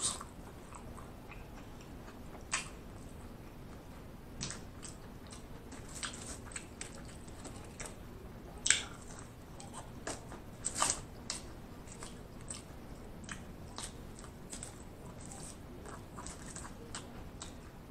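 Close-miked chewing and mouth sounds of a person eating fast food, with scattered short wet clicks, a few louder ones about two and a half, nine and eleven seconds in.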